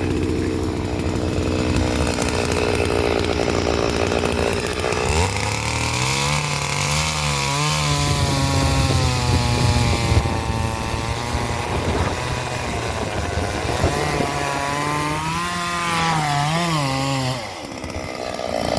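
Chainsaw running hard, then from about five seconds in its pitch dips and wavers repeatedly as it works through wood under load; it eases off briefly near the end.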